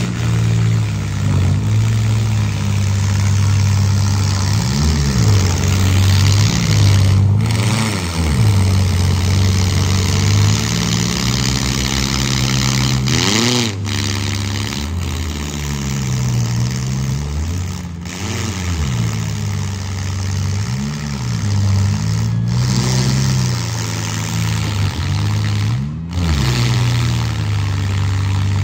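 Engines of several compact demolition derby cars running at once, revving up and falling back again and again as the cars manoeuvre.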